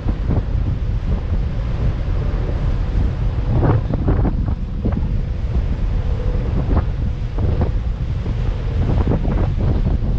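Strong wind buffeting the microphone aboard a moving boat, a heavy low rumble with irregular gusts, over the wash of the sea.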